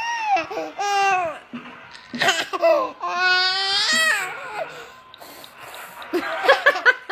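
A baby crying in a string of short, high wails, with a longer drawn-out wail that rises and falls about three seconds in.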